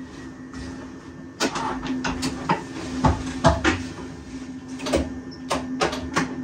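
Steady hum of a standing regional train's cab, with a run of irregular clicks and knocks starting about a second and a half in.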